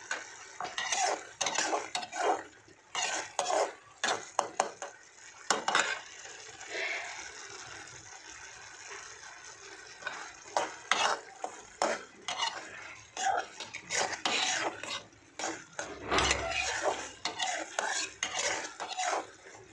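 Flat metal spatula scraping and clinking against a metal kadhai while stirring Maggi noodles, in irregular bursts of strokes. There is a quieter stretch in the middle.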